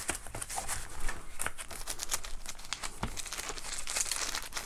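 Paper and packaging being handled: a run of small crinkles and crackles as a folded user manual is tucked into the mesh pocket of a hard-shell carrying case, with a light knock about three seconds in.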